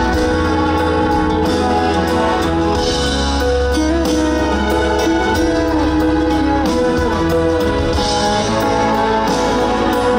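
Band playing an instrumental passage with a steady beat, a melody over sustained chords, and no singing.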